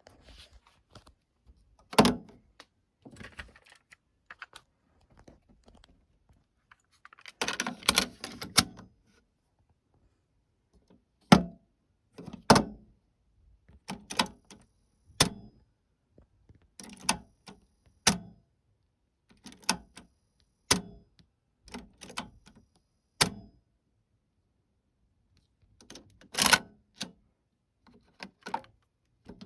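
A series of sharp mechanical clicks and clunks, spaced a second or two apart, with a rattly run of clicks about eight seconds in: the controls and mechanism of a TEAC A-100 stereo cassette deck being worked by hand.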